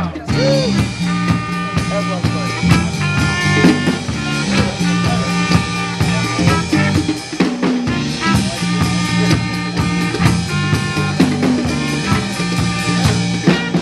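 Live band playing an instrumental passage: drum kit with rimshots, electric bass and guitars.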